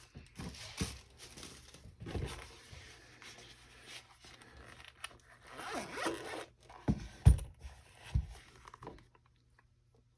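Hands opening small product packaging: irregular rustling, scraping and tearing of cardboard and plastic, with a few sharp knocks near the end before it stops.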